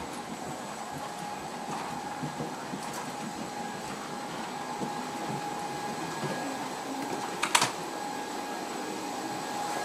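Steady hiss and thin whine of an Embraer ERJ-145's cabin air system, with scattered small knocks of footsteps and bags. One sharp clack about seven and a half seconds in.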